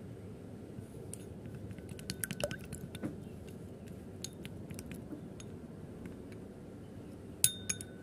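Wooden chopsticks beating a raw egg in a ceramic bowl: light, irregular clicks of the sticks against the bowl, with a couple of sharper taps near the end.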